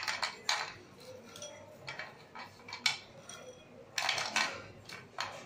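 Crisp fried papdi wafers being set down one by one on a plate, making an irregular series of light clicks and clatters, with the loudest cluster about four seconds in.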